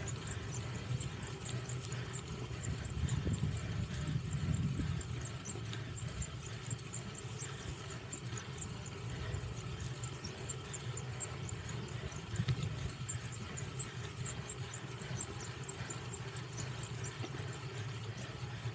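Cyclocross bike being ridden during a race: an uneven low rumble of tyres over rough ground, with a faint, fast high ticking through the middle.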